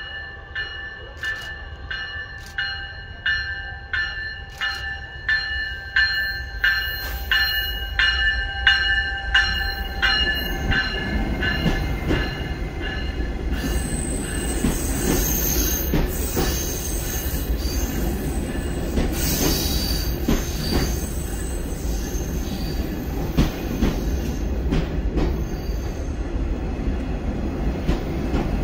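Metra Electric bilevel electric multiple-unit train pulling in along the platform. A high ringing pulses about twice a second as it approaches. From about ten seconds in it gives way to the rumble and repeated knocks of the wheels passing close, with brief high wheel squeals.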